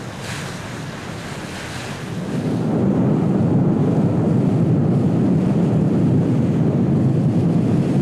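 Wind buffeting the microphone over the rush of water, growing much louder about two and a half seconds in.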